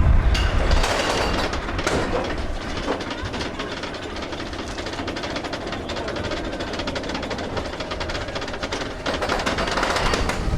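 Roller coaster train rattling and clattering along its track, with wind rushing past.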